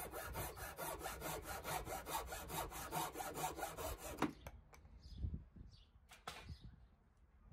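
Japanese pull saw crosscutting a red oak board to length, with quick, even strokes, several a second. The sawing stops about four seconds in as the cut finishes, followed by a single sharp knock and a few light taps.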